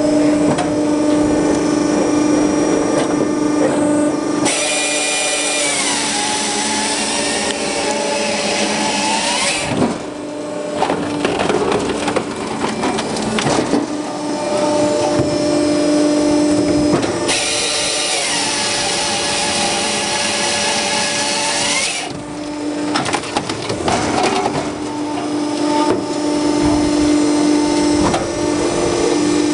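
TMS 45 firewood processor at work: its hydraulic drive hums steadily while its hydraulic chainsaw makes two cuts through a log, each about five seconds long. During each cut the chain's whine drops in pitch as it bites into the wood and rises again as it comes through. Between the cuts, wood knocks and cracks as the log moves on and is split.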